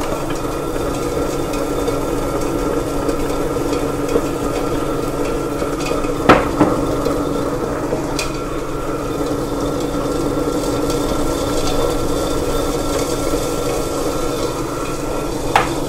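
Premier Wonder Grinder, a small stone melanger, running: a steady motor hum under a dense crackle as its two stones roll over cocoa nibs and crush them into cocoa mass. A single sharp click about six seconds in.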